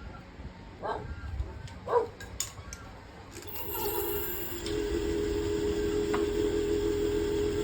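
Woodturning lathe motor starting up about halfway through and then running with a steady hum at a constant pitch. Before it come two brief pitched sounds and a few light clicks.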